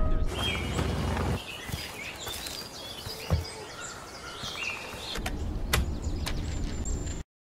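Birds chirping in forest ambience, over a low rumble that fades out about a second and a half in and comes back near the end, with a few sharp clicks; the sound cuts off abruptly just before the end.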